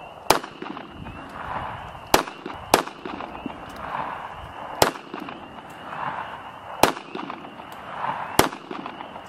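Six pistol shots from a Beretta Cheetah .380 semi-automatic, fired one at a time at uneven intervals of roughly one to two seconds, each a sharp crack.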